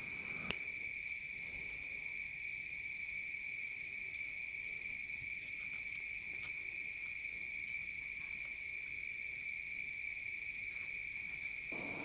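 A cricket trilling steadily at one high pitch, with a single faint tick about half a second in.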